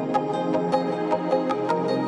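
Background music: sustained tones over a light, even beat of about three strikes a second.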